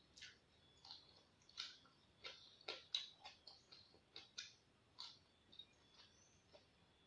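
Close-up crunching of raw salad vegetables being chewed: a run of short, crisp crunches at an irregular pace of about two a second, one sharper than the rest about three seconds in.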